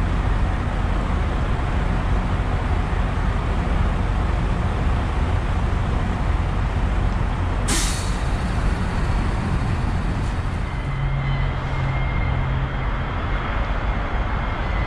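Semi-truck's diesel engine idling with a steady low rumble. About eight seconds in comes one short, sharp hiss of air from the air brakes. Faint high steady tones come in over the last few seconds.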